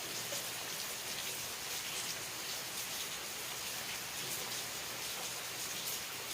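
Steady rain falling: an even hiss with scattered drops pattering.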